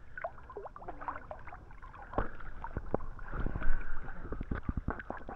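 Swimming-pool water splashing and lapping as people move through it, with a run of small slaps and drips in the second half.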